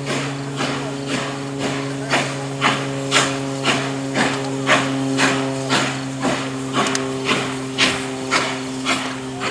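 Steam locomotive exhaust chuffing at an even beat of about two chuffs a second, over a steady hum.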